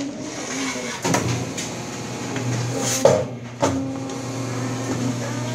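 Meat-flattening press machine at work: a steady motor hum starts about a second in and runs on, with a few sharp clacks as the board and press move.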